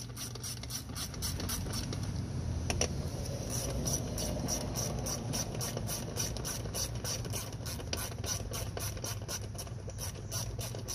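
Hand ratchet clicking steadily in a quick, even run as it drives the 8mm screws of a Briggs & Stratton lawn mower's recoil starter cover back in.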